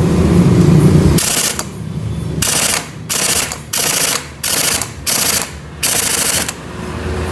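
Impact wrench hammering in about seven short rattling bursts, driving the flywheel (magneto rotor) nut tight on a Honda Supra X 125 engine.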